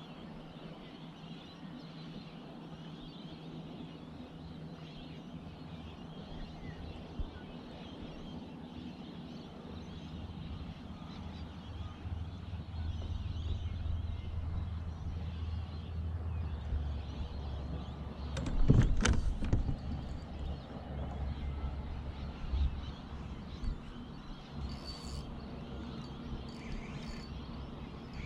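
Steady outdoor background noise with a low rumble that builds in the middle, and a loud knock about two thirds of the way through.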